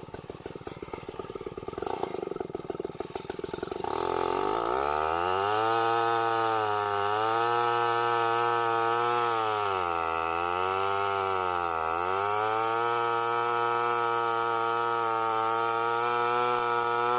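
Stihl 070-type two-stroke chainsaw idling unevenly, then opened up to full throttle about four seconds in. It holds a steady high note whose pitch sags and recovers three times as the chain works through the wood.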